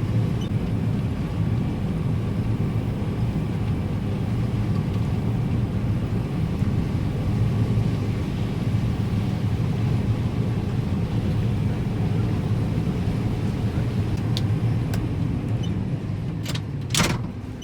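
John Deere combine running steadily while harvesting corn: an even, low droning hum of engine and threshing rotor. A few sharp clicks and one loud snap come near the end.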